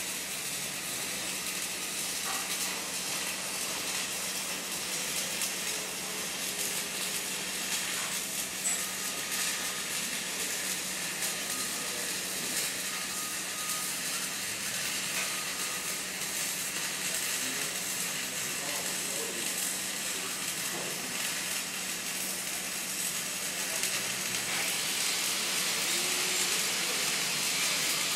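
Stick-welding arc crackling and sizzling steadily as a hot pass is run around 6-inch schedule 80 steel pipe. A steady low hum runs underneath, and the crackle grows somewhat louder near the end.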